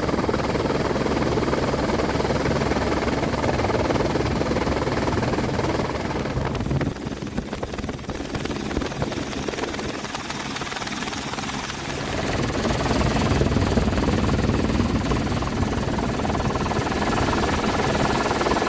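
Helicopter rotor and engine noise recorded from on board the aircraft, a steady dense chop. It drops somewhat for several seconds in the middle, then comes back up.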